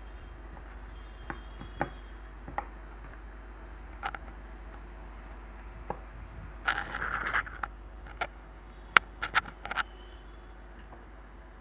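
Handling noise close to a phone microphone: scattered light clicks and taps, a brief scraping rustle about seven seconds in and a quick run of sharp clicks near the end, over a steady low hum.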